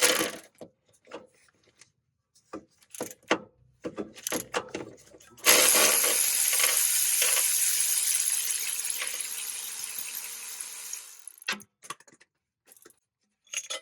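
Scattered clicks and clinks of hand tools being handled, then a sudden loud hiss that lasts about five seconds and slowly fades.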